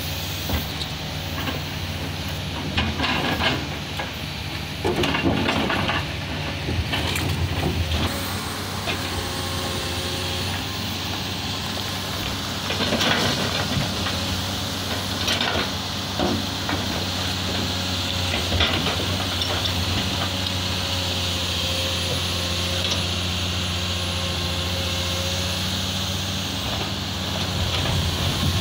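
Heavy diesel engines of a dump truck and a Komatsu PC200 excavator running steadily, while soil and rocks slide out of the tipped steel dump bed with repeated clattering and thudding, the loudest knocks about 5 and 13 seconds in.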